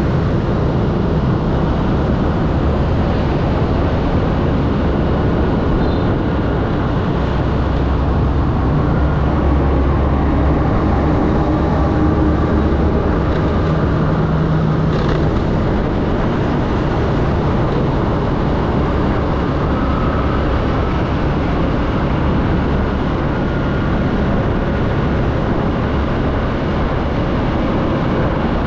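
Steady rush of riding a motor scooter in heavy motorbike traffic: wind on the microphone over the scooter's engine and tyres and the hum of the bikes around it, with no letup.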